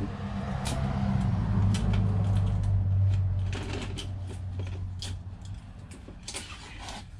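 A low, steady engine-like hum that swells over the first few seconds and then fades away, with a few light clicks of items being handled.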